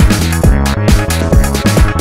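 Electronic background music with a steady kick-drum beat and a deep held bass line.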